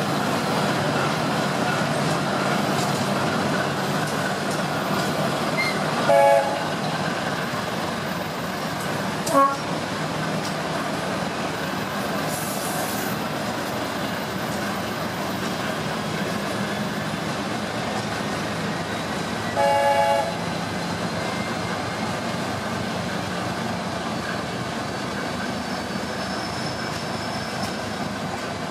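Steady running noise of a moving train, heard through an open carriage window, with a low steady hum. A train horn gives a short toot about six seconds in and another, slightly longer, about twenty seconds in.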